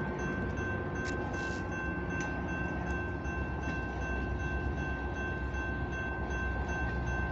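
Diesel switcher locomotives rumbling at low power while a bell rings steadily over them, with a few faint clicks.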